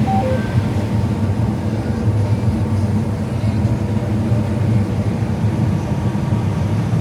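Combine harvester running steadily through corn, a constant low drone heard from inside the cab. A couple of very short faint tones sound near the start.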